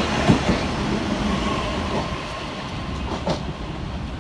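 Class 397 electric multiple unit pulling away along the track, its wheels clicking over rail joints and pointwork. The steady rumble fades as it moves off.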